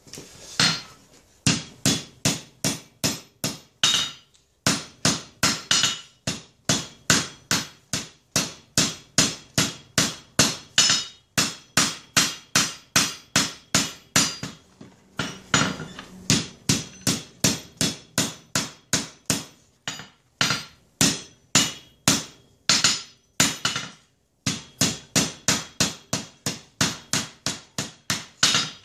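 Hand hammer striking red-hot forge-welded chainsaw-chain steel on an anvil, a steady rhythm of about two to three blows a second with a short ring after each, while the bar is forged into a knife blade. The hammering pauses briefly three times.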